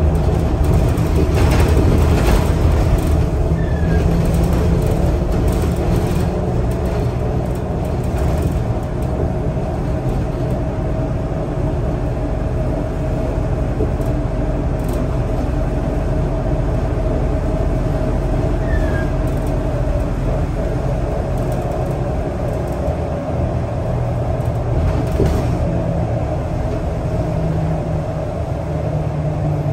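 Scania L94UB city bus on the move, heard from inside the passenger saloon: a steady low engine and road drone with a thin steady whine over it. There are a few brief knocks, and the drone swells slightly near the start and again near the end.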